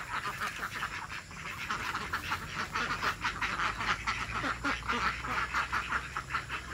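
A flock of ducks quacking continually, a rapid run of short, overlapping quacks.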